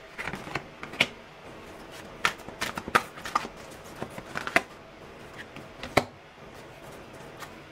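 Tarot and oracle cards being handled and laid down on a wooden table: irregular sharp card snaps and slaps, loudest at about one, three and six seconds in.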